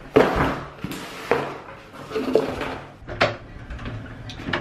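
Knocks, scrapes and clatters as a cardboard box is set down and handled on a wooden table, with sharp clicks near the end from a metal door handle being turned.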